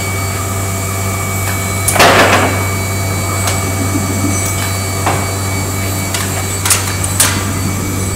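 Steady hum of furniture-factory machinery on a chipboard panel-handling conveyor line, with several sharp knocks. The loudest knock comes about two seconds in, and smaller ones follow near five and seven seconds.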